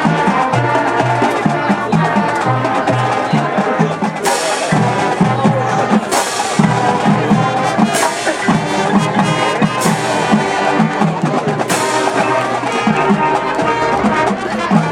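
High school marching band playing its field show: brass melody over the drumline, with sharp percussion hits about every two seconds from about four seconds in.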